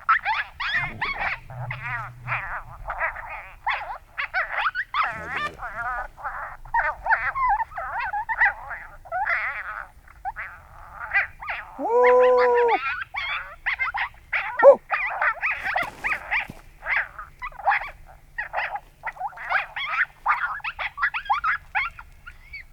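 Electronic predator call playing a fast, continuous run of high coyote-like yips and yelps, several a second, with one short held note about twelve seconds in.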